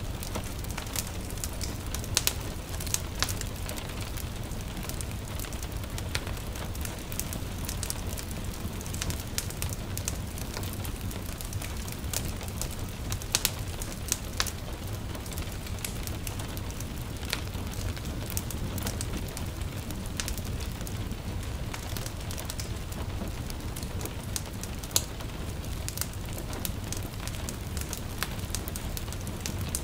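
Wood fire in a stove crackling, with frequent irregular sharp pops, over a steady hiss of light rain and a low rumble.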